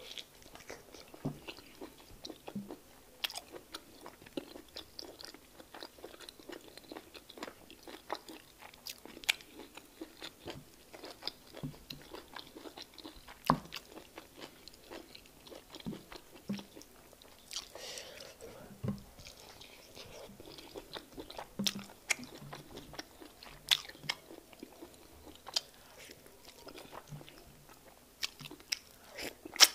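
Close-miked mouth sounds of a person eating egusi soup with fufu by hand: wet chewing and smacking, broken by irregular sharp clicks several times a second, a few of them much louder than the rest.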